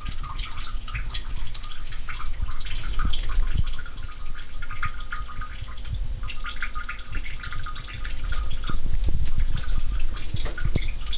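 Liquid trickling and dripping into toilet-bowl water in irregular small splashes: a toilet-trained cat urinating while perched on the toilet seat.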